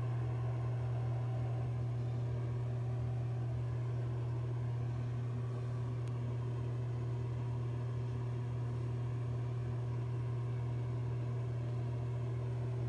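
A steady low hum that stays level and unchanging throughout, with no bursts or separate events.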